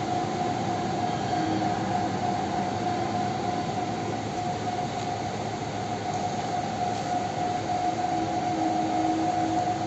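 Wood pellet heater's blower fans running: a steady whine over an even fan hum, with a fainter lower tone that fades in and out.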